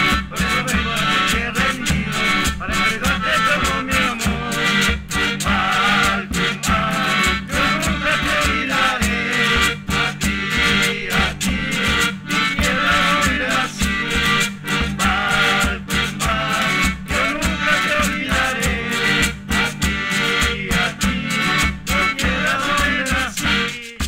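Traditional Andean folk music played by a group: strummed strings over a steady, quick percussion rhythm.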